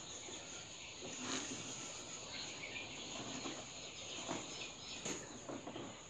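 Scattered light clicks and knocks of eggs being handled and wiped by hand, over a steady high-pitched insect chirring.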